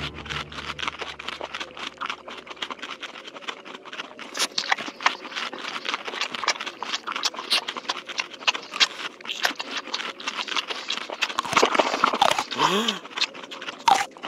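Cartoon sound effect of a crowd of mice gnawing and nibbling: a dense, rapid crackle of tiny clicks. A short sliding groan comes about two seconds before the end.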